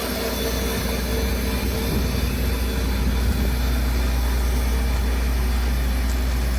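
New Holland T9.670 HD tractor's diesel engine droning steadily under load as it pulls a Bourgault air drill seeding, with a hiss over the drone, slowly growing louder.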